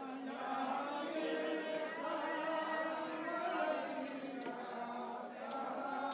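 Chanting voices with long held notes. A few sharp knocks from the knife on the wooden chopping block come in the second half.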